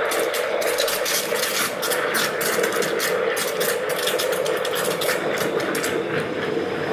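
Espresso machine's pump running steadily with a fast rattling buzz as it forces hot water through to brew black tea.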